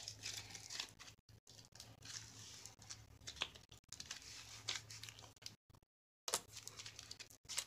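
Slime being squeezed and pulled between the hands: faint, irregular sticky crackles and clicks. The sound cuts out briefly about six seconds in.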